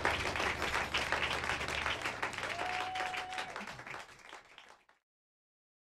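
Audience applauding at the end of an acoustic song, over a low steady tone that stops about two seconds in; the applause fades and cuts to silence about five seconds in.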